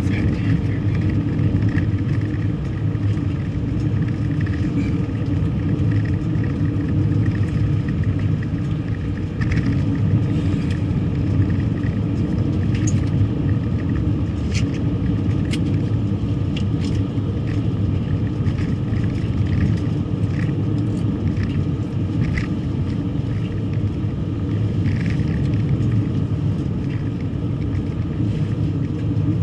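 A car driving along: a steady rumble of engine and road noise, with a few faint light ticks.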